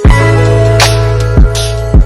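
Background music with a steady drum beat over held chords and a bass line.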